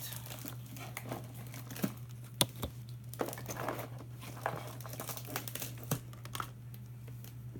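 Clear plastic wrapping crinkling and rustling as small toys are handled and pulled out of a cardboard box, with scattered light clicks and one sharper tap about two and a half seconds in. A steady low hum runs underneath.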